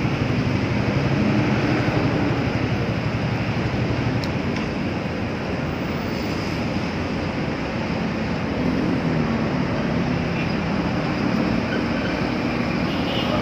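Suzuki Raider 150 Fi motorcycle engine running steadily while riding, under a continuous rush of wind and road noise.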